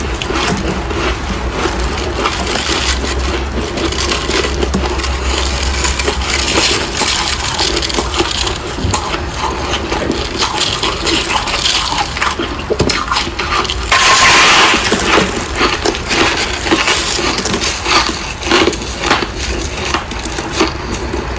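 Built-up freezer frost being crunched: a dense, unbroken run of crackling crunches, with a louder stretch about two-thirds of the way through.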